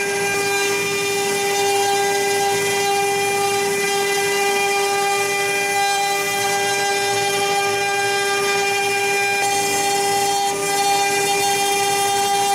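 Four-spindle CNC router with four rotary axes carving bars turning in its chucks: a steady, high-pitched spindle whine over a constant hiss of cutting.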